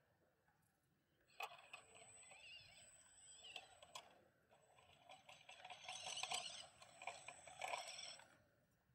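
Faint whine of the Axial SCX24 micro crawler's small electric motor and gears as it crawls over rock, starting about a second and a half in and rising and falling in pitch, with scattered small clicks.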